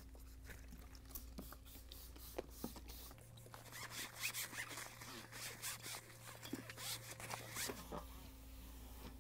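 Paper towel damp with rubbing alcohol wiping back and forth over a microwave's inner door frame and perforated screen, a faint scratchy rubbing in a run of strokes from about three seconds in until near the end. A few light clicks come before it.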